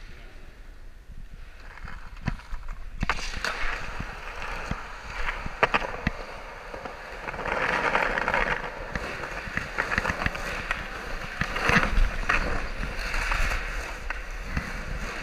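Skateboard wheels rolling, starting about three seconds in and running on with a steady rumble. Sharp clacks and knocks of the board come now and then, a few of them louder.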